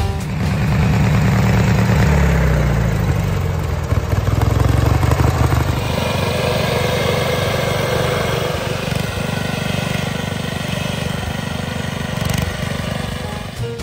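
Small air-cooled engine of a tiny vintage garden tractor running as it is driven over grass. Its pitch drops over the first few seconds, then it runs steadily.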